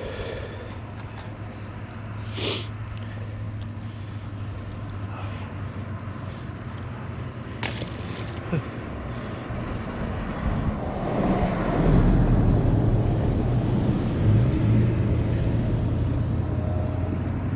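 Road traffic running past on the bridge: a steady low engine hum, with a vehicle growing louder about two-thirds of the way in. Two sharp knocks stand out earlier.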